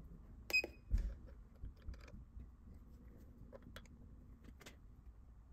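Scattered light metallic clicks and taps as the steel hook of a handheld force gauge is handled and hooked onto a 3D-printed tow hook, then pulled. The sharpest click, about half a second in, rings briefly; a dull thump follows about a second in.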